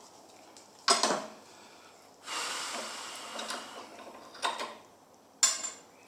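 Metal tools and parts being handled on a workbench: sharp metallic clinks about a second in and twice near the end, with a noisier stretch of handling of about a second and a half in the middle.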